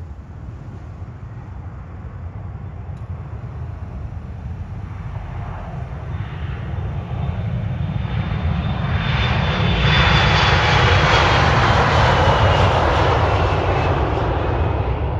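Fuji Dream Airlines Embraer E-Jet on its takeoff roll, its twin turbofan engines at takeoff power, the roar growing louder from about halfway and peaking as the jet passes and lifts off. A high engine whine falls slowly in pitch over the roar, with a steady low rumble underneath.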